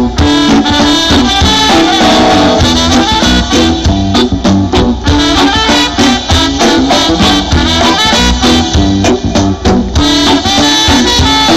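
Reggae band playing an instrumental break: horns carry the melody over a steady bass and drum beat.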